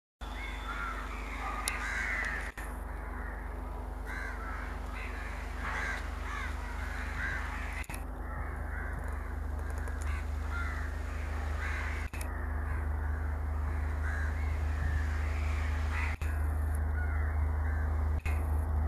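Crows cawing repeatedly over a steady low rumble that grows louder toward the end.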